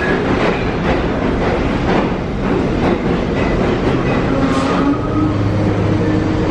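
Loud, steady noise of a New York City subway train at an underground station platform. A low steady hum joins it about five seconds in.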